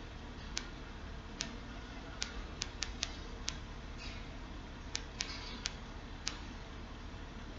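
Computer mouse clicking: about a dozen short, sharp clicks at irregular spacing, over a faint steady hum.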